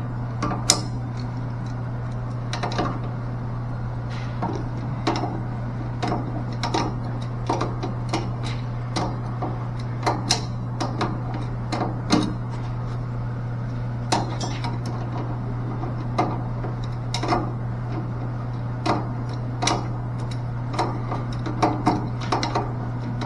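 Metal tools clinking and knocking against a mixing valve as it is taken apart: irregular small clanks and taps throughout, over a steady low hum.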